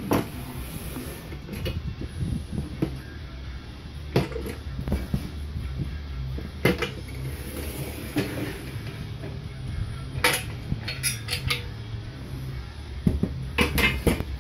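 Clicks and clunks of a Rousseau table saw fence being handled on its metal rail, its lock handle worked and the fence shifted, heard as scattered sharp knocks with a few quick runs of clatter near the end. A steady low hum runs underneath.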